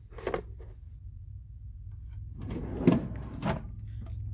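Metal tool box drawers sliding on their runners, one shut and the next opened, with a knock near the start and two clunks as a drawer runs to its stop.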